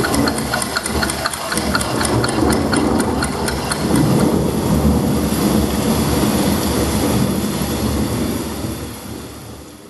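Closing bars of the dance piece's music track: a fast, even ticking beat over a low rumbling drone. The ticking stops about four seconds in, leaving the rumble, which fades out near the end.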